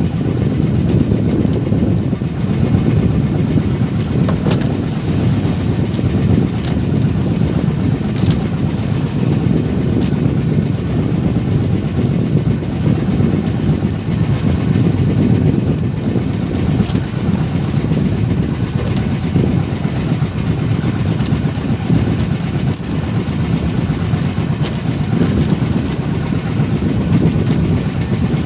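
Strong wind buffeting the microphone: a loud, steady, gusting rumble, with a few faint clicks.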